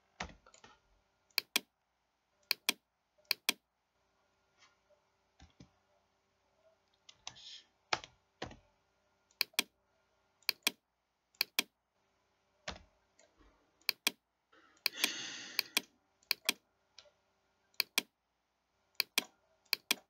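Computer mouse and keyboard clicks: sharp single clicks, many in quick pairs, at irregular gaps of about a second, as CAD software is worked. A short rustling noise comes about three quarters of the way through.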